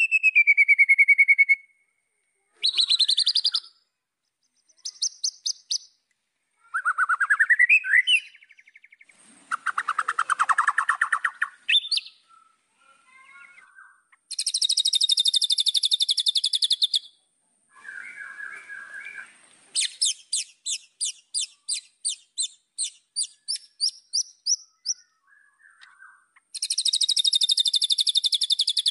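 White-rumped shama singing a varied song in separate phrases with short pauses between them: a clear falling whistle at the start, rising glides, runs of quick repeated notes at about three a second, and harsh, noisy phrases in the middle and near the end.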